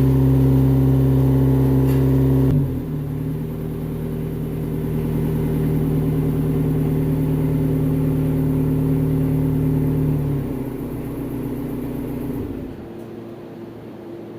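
Airman mini excavator's diesel engine running steadily in the cold. It drops to a lower, quieter note about two and a half seconds in, then winds down and stops near the end.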